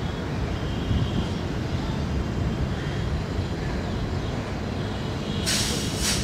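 Hyundai Rotem-built EMD GT38AC diesel-electric locomotive running slowly with a steady low engine rumble. Near the end comes a loud hiss of escaping air lasting under a second.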